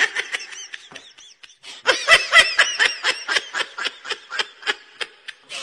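A person laughing in a run of short, high-pitched bursts, about four a second, softer at first and louder from about two seconds in.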